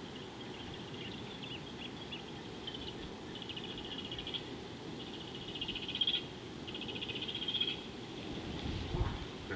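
A high, rapid trilling call from a small wild animal, repeated in bouts of about a second each, strongest through the middle, over a steady low background rumble.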